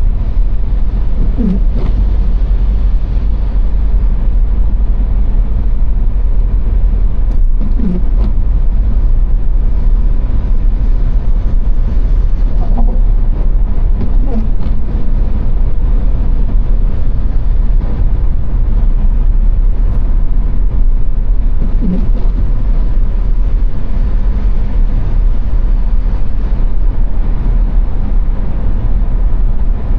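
Car travelling at motorway speed: a steady, loud low rumble of tyres, wind and engine with no break.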